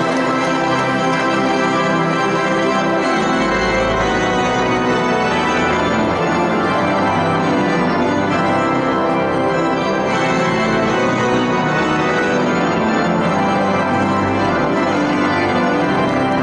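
Church organ playing full, held chords with deep bass notes sounding beneath them.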